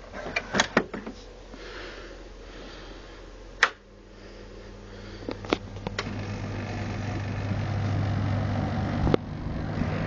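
Dehumidifier running: a few light clicks, then a sharp click about three and a half seconds in, after which a steady low machine hum builds and grows louder. Another click near the end, where the hum drops a little.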